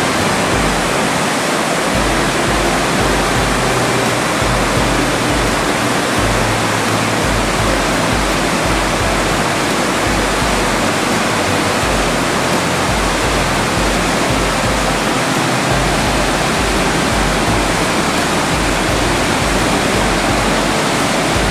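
Steady, loud rush of the Pioverna torrent in flood, storm-swollen water churning and pouring through a narrow rock gorge.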